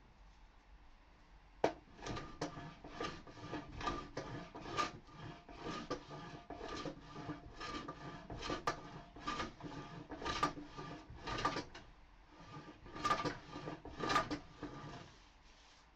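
Hand plane taking short, quick strokes over reclaimed pallet-wood boards, about two a second, to take down a raised spot on a workbench top. It starts with a sharp knock, pauses briefly near the twelve-second mark, and stops a second before the end.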